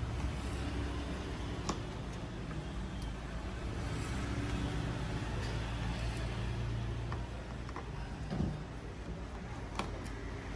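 Steady low background rumble with a few small sharp clicks as a laptop case is taken apart.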